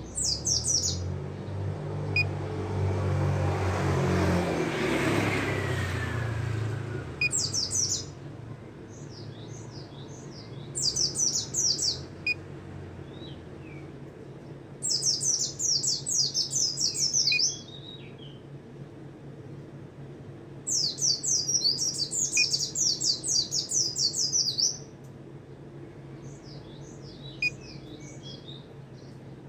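Caged white-eye (pleci) singing in loud bursts of rapid, high-pitched twittering, with shorter soft phrases between them. The longest bursts last three to four seconds. A passing vehicle rumbles underneath during the first several seconds.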